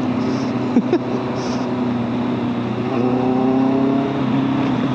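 Honda CBR650F's inline-four engine running as the motorcycle is ridden along at a steady pace. Its pitch rises gently about three seconds in as the bike picks up a little speed.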